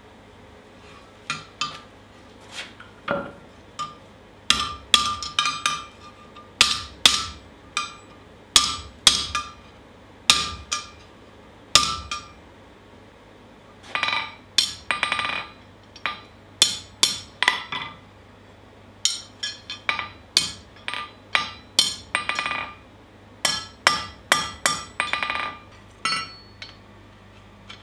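Hand hammer striking red-hot steel on an anvil in runs of blows, each strike ringing off the anvil. There is a pause of about two seconds in the middle, and lighter clinks near the end.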